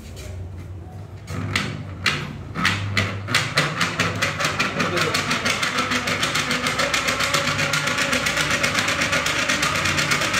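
Hand-cranked electromagnetic induction demonstration generator being turned. Its crank and gears give a few separate clicks, then click faster and faster until they settle into a steady, rapid rhythm.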